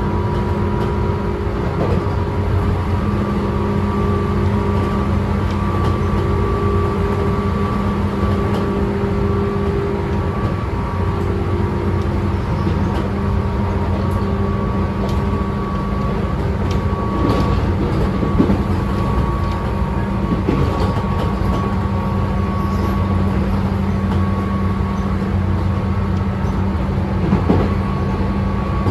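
Tobu 9000 series electric multiple unit running at speed, heard from motor car MoHa 9204: a steady chopper-control hum made of several fixed tones over wheel-and-rail rumble. A few rail-joint clicks come in the second half.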